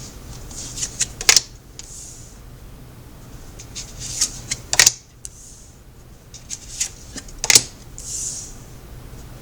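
Tarot cards being handled and laid down on a table: three groups of quick sharp card snaps and clicks, about three seconds apart, each followed by a short soft slide.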